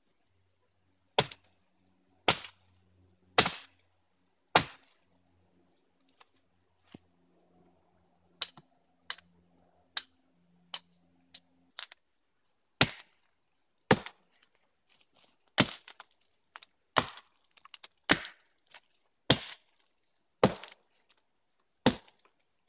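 Axe chopping through a thin fallen log: sharp blows about one a second with a short pause partway through, each a crisp woody crack.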